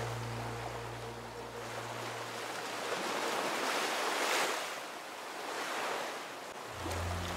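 Ocean surf: waves breaking and washing in, swelling loudest about four seconds in and again near six seconds. Background music with a low bass line fades out in the first two seconds and comes back near the end.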